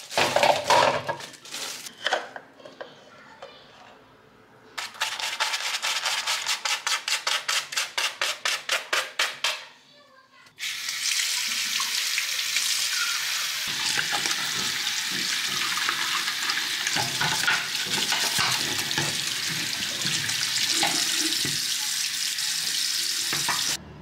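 A plastic bag crinkles as it is handled, then a run of quick, even strokes, about four a second, comes from the vacuum cleaner's dust canister being worked on. From about ten seconds in, a tap runs steadily over the dusty canister and parts in a washbasin as they are rinsed by hand.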